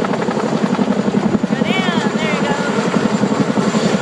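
Helicopter's rotor beating steadily in a fast, even chop, with no change in pace. Two short, high, arching chirps sound near the middle.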